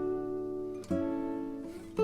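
Background music: a gentle acoustic guitar instrumental, with a new plucked chord about once a second that rings on between strums.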